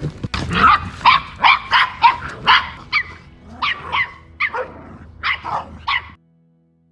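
Miniature Australian Cattle Dog puppy yapping: a run of about a dozen short, high-pitched barks and yips, roughly two a second, cutting off suddenly near the end.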